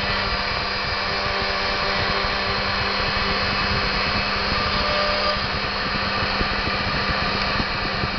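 CNC milling machine's spindle motor running steadily, a constant hum over a broad whirring noise.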